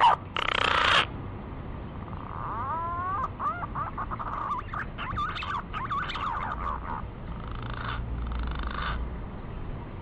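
Male pink-necked green pigeon calls played as a bird-lure recording. A loud burst comes in the first second, then a quieter run of wavering, gliding whistled notes, and rougher notes near the end.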